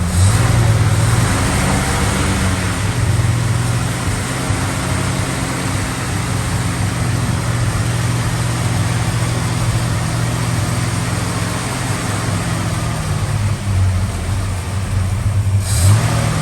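Chrysler Valiant Charger engine running steadily on choke, just after a cold start on fresh oil.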